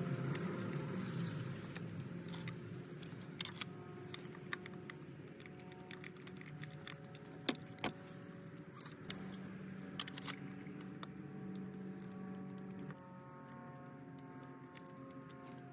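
Scattered sharp metallic clicks and clinks of hand tools and spark plugs being handled, a dozen or so, over steady background music.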